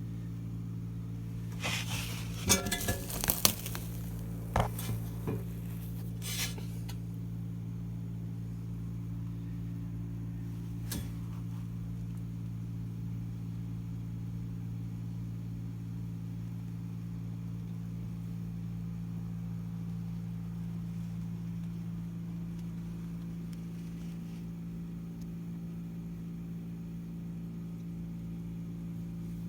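Steady low electrical hum of HVAC equipment in a sheet-metal mixing box. A flurry of metallic clinks and knocks comes a couple of seconds in, and a single tap follows a few seconds later.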